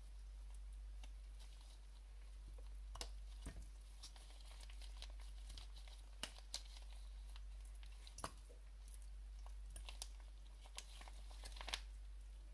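Faint crinkling and light clicks of a sachet of green curry paste being squeezed and handled to press the paste out, scattered irregularly over a steady low hum.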